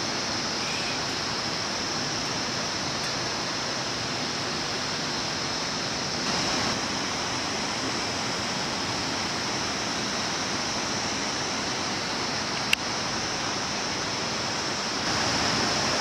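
Steady rushing of flowing water, like a stream, with a constant high hiss over it. A single sharp click comes about thirteen seconds in.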